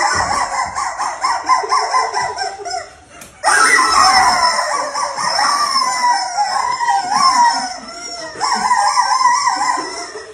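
Rubber chicken toys held in the mouth and blown through, squawking in long wavering squeals, with a short pause about three seconds in.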